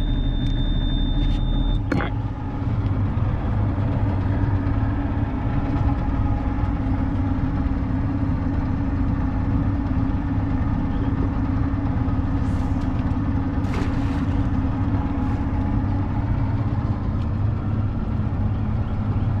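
Boat motor idling steadily. A thin high whine sounds over it for the first two seconds and stops with a click.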